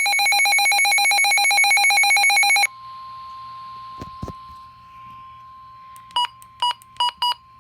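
Emergency weather alert tones. A loud, rapidly pulsing electronic alarm beep lasts about two and a half seconds, then cuts to a quieter, steady single warning tone near 1 kHz, the weather-radio warning alarm tone. Four short beeps sound over it near the end, and there is a dull thump about four seconds in.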